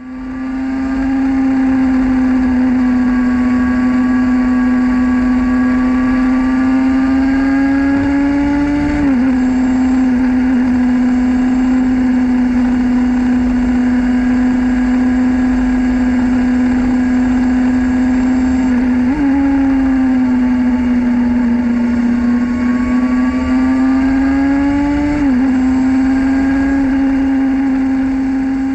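Yamaha TZR250 3MA two-stroke parallel-twin engine running hard under way, its high engine note held steady and creeping upward, with three quick breaks in pitch as it shifts gear.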